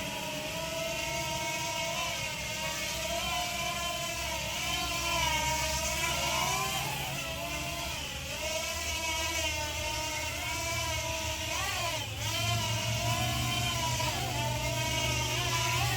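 JJRC JJ850 quadcopter's motors and propellers whining in flight, the pitch gliding up and down with the throttle, with a sharp drop and recovery about twelve seconds in.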